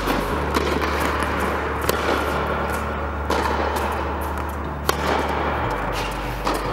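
Tennis balls struck by rackets in a rally, one sharp pop every one and a half to two seconds, over background music with a steady bass line.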